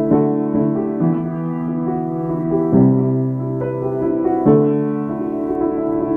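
Slow keyboard music: held chords, with a new chord struck every second or so.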